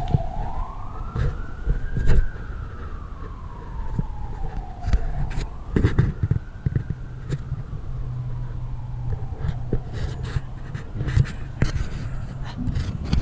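An emergency vehicle's siren wailing, a slow rise and fall in pitch that repeats about every five seconds and fades out about ten seconds in. Scattered knocks and rustles sound over it.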